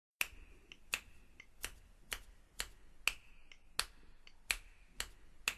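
A series of about ten sharp clicks or snaps, roughly two a second and slightly uneven, each with a brief high ring, with a few softer clicks in between.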